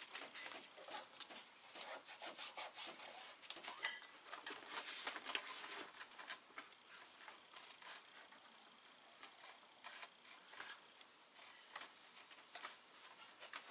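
Hands rubbing and pressing on stiff Dacron sailcloth: a faint, crisp, crinkly rustle of many quick strokes that thins out in the second half.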